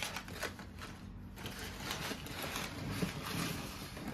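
Crumpled brown packing paper and paper sheets rustling and crinkling in a cardboard box as it is unpacked, in a run of irregular crackles.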